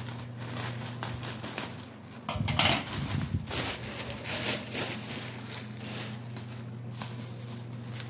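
Plastic shipping pouch being handled and opened, rustling and crinkling irregularly, loudest about two and a half to three and a half seconds in. A steady low hum runs underneath.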